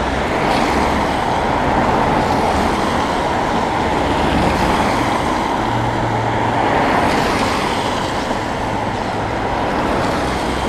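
Busy road traffic passing close by, one vehicle after another, each rising and fading as it goes past, with tyre noise on a rain-wet road.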